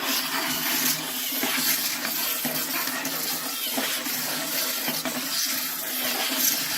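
A small robot's motors running with a steady, noisy whir as the robot moves to hide the button. It starts suddenly and does not let up.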